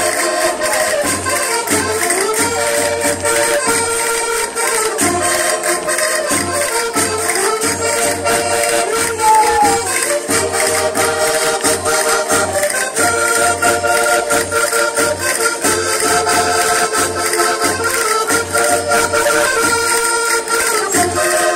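Live traditional folk dance music: a sustained melody line over a pulsing bass and dense, rapid clicking and jingling percussion, the clicks likely including the dancers' castanets.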